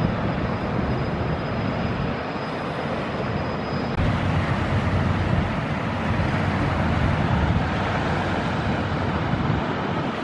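Steady outdoor rumble and rushing noise of wind and water at the waterside, with a jump in level about four seconds in.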